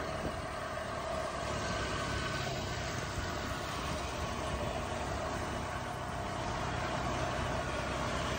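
Motorbike running at a steady, even pace, heard from the rider's seat, with a steady hiss of wind and road noise over it.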